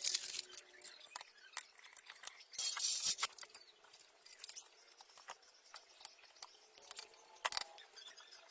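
Hand tools and small metal parts clicking and clinking as they are handled during work on a moped, with a short hissing burst at the start and another about three seconds in.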